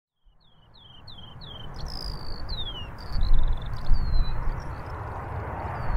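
A small bird sings a series of quick descending chirps, several a second at first, over the low gusting rumble of strong wind buffeting the microphone. A steady hiss builds underneath as the sound fades in.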